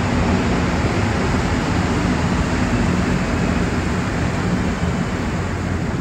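Montreal Metro Azur rubber-tyred train moving along the station platform. It makes a loud, steady running noise with a low drone underneath, easing slightly toward the end.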